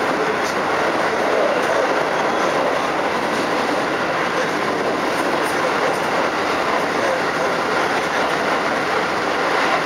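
Running noise heard inside a Keikyu New 1000 series electric motor car at speed: a steady rumble of wheels on rail, with a few faint clicks from the track.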